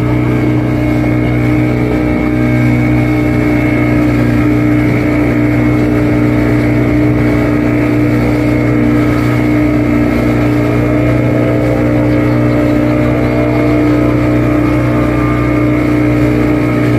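Motorboat engine running steadily at speed, with water rushing and splashing along the hull.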